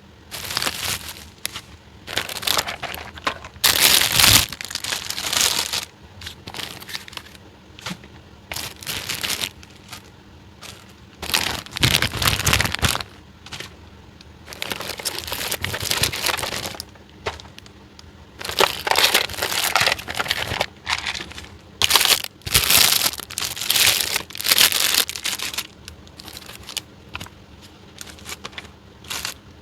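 Plastic toy packaging crinkling and rustling as it is handled and unwrapped, in irregular bursts a second or two long.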